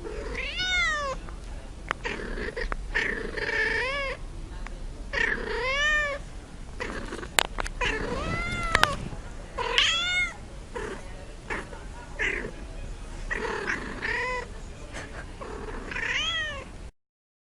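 Domestic cat meowing over and over, about eight drawn-out meows, each rising then falling in pitch, with a couple of sharp clicks in the middle. The sound cuts off suddenly near the end.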